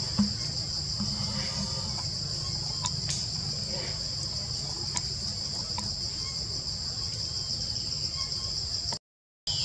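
Steady, high-pitched drone of an insect chorus in forest, over a low background rumble. It cuts out briefly near the end.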